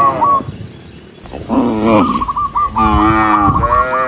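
Cattle mooing: a moo tails off at the start, then after a short pause long, drawn-out moos follow one after another to the end.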